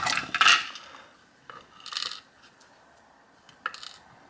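Small metal lock pins and the brass plug of a pin-in-pin cylinder clinking and rattling as the pins are pulled and tipped out onto a wooden pinning tray. A cluster of clicks at the start, another clatter about two seconds in, and a few light ticks near the end.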